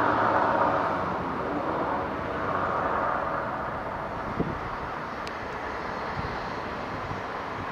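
Class 57 diesel locomotive, with its EMD two-stroke V12, running as it heads a passenger train round a curve: a steady engine drone that grows gradually quieter, with one short knock about four and a half seconds in and a brief faint squeak about a second later.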